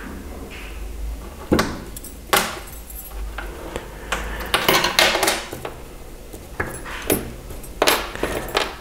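Small brass-wire necklace elements clinking against one another and tapping on the tabletop as they are handled and threaded onto a cord: irregular light clicks with some handling rustle.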